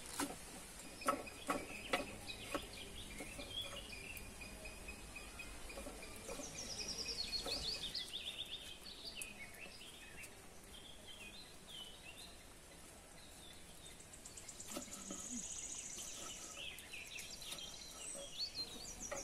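Birds singing, with repeated descending trills and chirps. About five sharp knife taps on a wooden chopping board come in the first three seconds.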